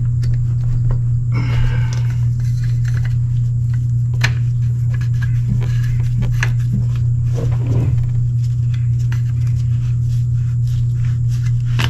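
Scattered clicks and light scrapes of a new fuel filter being fitted by hand on a New Holland TS110 tractor, over a steady low hum.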